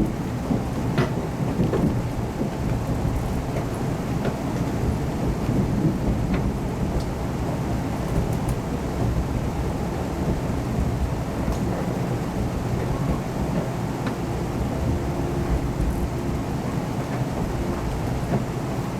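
Cabin noise inside a KiHa 181 series diesel railcar under way: a steady low rumble of the engine and the wheels on the rails, with a few scattered light clicks.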